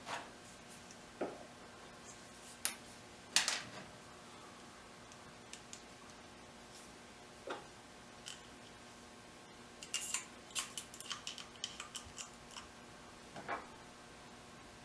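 Scattered clicks and light knocks of small hard parts being handled, with a quick run of clicks about ten seconds in, over a faint steady hum.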